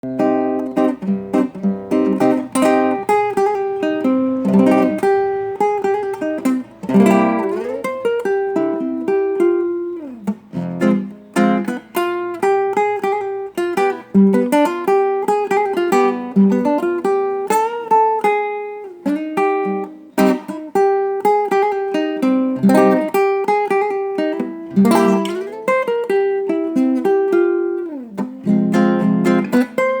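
Instrumental music: a plucked guitar plays a lively melody in quick single notes, with frequent bent notes, over a band accompaniment.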